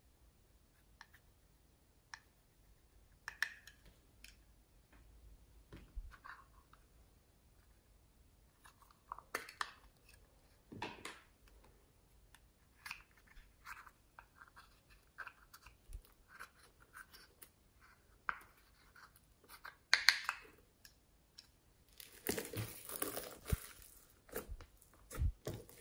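Plastic spatula scraping and tapping at pressed eyeshadow in a compact palette, a scattered run of small scratches and clicks. About 22 seconds in, a hand presses and squishes glittery slime in the bowl, denser and louder.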